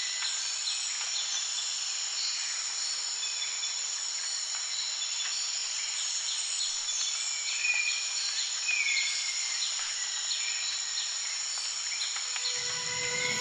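Jungle ambience: a steady high-pitched drone of insects with a few short bird chirps scattered through it, loudest about two-thirds of the way in.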